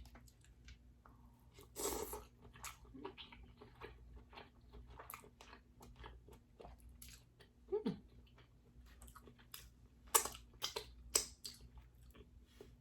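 Close-miked eating of king crab in garlic butter: wet chewing with scattered crunches and sharp clicks, loudest about two seconds in and again around ten to eleven seconds.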